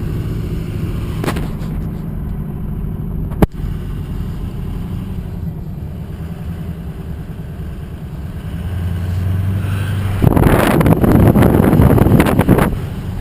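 Vehicle engine running steadily, with one sharp click about three and a half seconds in. Near the end a loud rushing noise comes in for about two and a half seconds, then cuts off.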